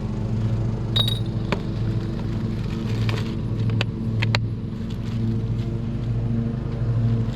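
Mini skid steer's small engine running at a steady idle, with a few sharp metallic clicks and knocks.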